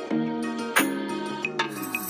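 Background music with a steady beat: pitched instrumental notes and a falling slide near the end.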